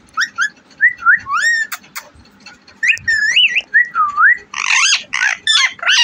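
Rose-ringed (Indian ringneck) parakeet calling: a run of short whistled chirps that glide up and down in pitch, then louder, raspier squawks near the end.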